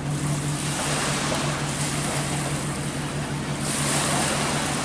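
Motorised watercraft engine running at a steady hum, with water and wind noise around it; a brighter hiss of water swells about three and a half seconds in.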